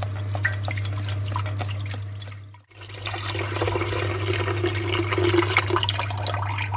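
Chicken stock pouring in a stream into an empty metal stockpot, splashing and bubbling as it collects at the bottom. The pouring cuts out for a moment a little under halfway through and then resumes, over a steady low hum.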